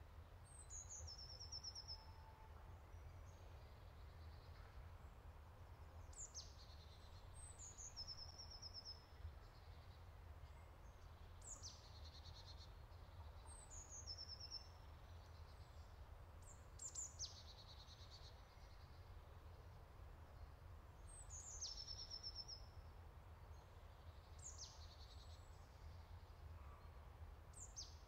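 A bird singing faintly, repeating a short high phrase of steeply falling notes that ends in a brief trill, about every two to four seconds, over a steady low rumble.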